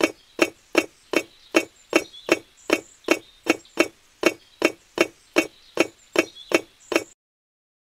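Miniature clay bricks set down one after another on a model truck's painted wooden bed, a short sharp click with each brick, about two and a half a second in an even rhythm. The clicks stop about seven seconds in.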